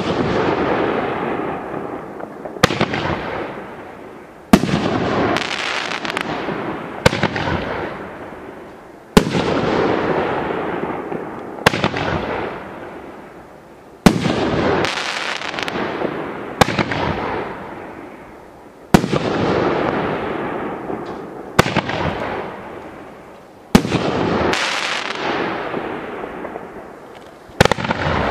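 A 500 g consumer fireworks cake firing its shells one after another. Each shell gives a sharp bang followed by a loud noisy tail that dies away over a second or two. The bangs come about every two to two and a half seconds.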